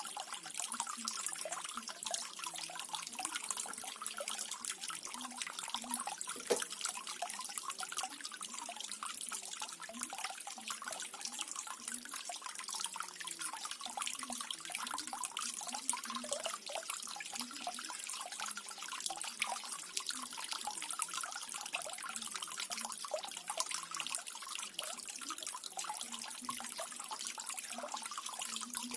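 Small decorative waterfall: water falling and splashing steadily, a dense run of small splashes and drips.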